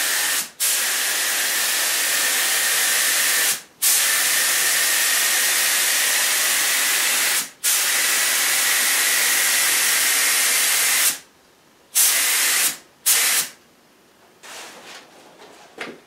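Air-fed spray gun hissing as it sprays clear lacquer onto a guitar body, in long passes of about three to four seconds with brief breaks between them. It stops about eleven seconds in, gives two short bursts, and then falls quiet apart from faint handling sounds.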